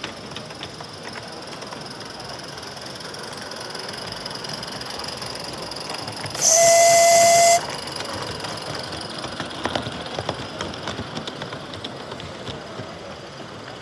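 A 16mm-scale live-steam narrow gauge model locomotive blowing its steam whistle once, a single steady note with a hiss of steam, lasting about a second, about six seconds in. Around it, the steady background noise of a busy hall.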